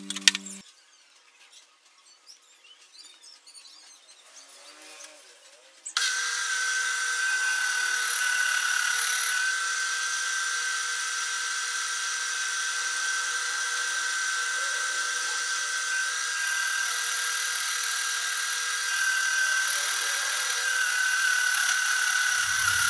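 Homemade milling machine's horizontal spindle running, turning down a metal shaft against a cutting tool to remove runout. The cut chatters a lot, with a steady high whine running through it. It starts suddenly about six seconds in, after a brief end of music and a few seconds of faint quiet.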